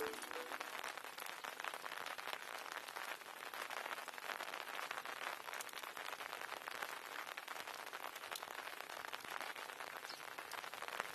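Steady, dense patter of water droplets, made up of many fine crackles.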